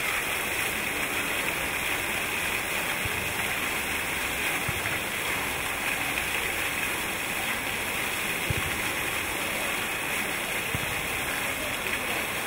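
Ground-level fountain jets shooting up and splashing steadily back onto wet paving, a continuous rushing water sound.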